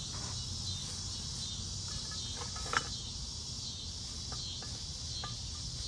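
Cicadas droning steadily in a high-pitched buzz, with a few light knocks and one sharper click near the middle.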